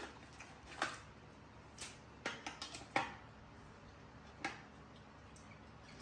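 A knife and jackfruit knocking against a plastic bowl as the fruit is cut apart: about eight sharp clicks and taps, with a quick run of them near the middle.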